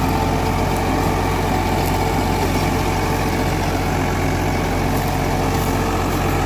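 Eicher 551's three-cylinder diesel engine running steadily under load while driving a Mahindra rotavator that is tilling wet soil in low first gear.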